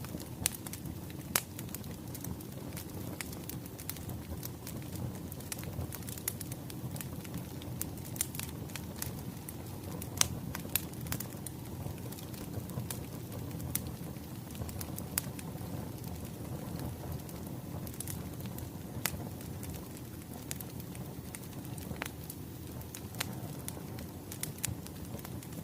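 Wood fire crackling: a steady low rumble of burning logs with frequent irregular sharp pops and snaps, a few of them louder than the rest.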